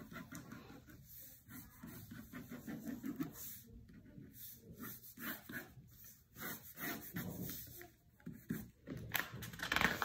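Pen scratching on paper in quick, irregular strokes as an outline is drawn, close to the microphone. Near the end, louder rustling as paper sheets are slid and handled.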